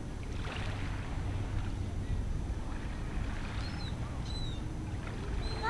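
Steady low wind rumble on the microphone at the shoreline, with faint splashing as a child stirs a stick in the shallow water. A few short, faint high chirps sound about four seconds in.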